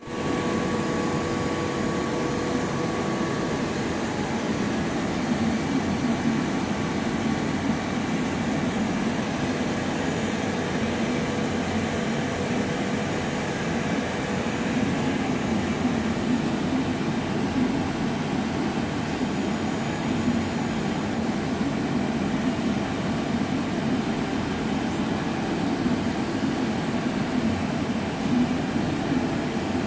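AgieCharmilles CUT E350 wire EDM machine running during a cut: a steady mechanical hum and hiss, with a faint higher tone that fades out about four seconds in.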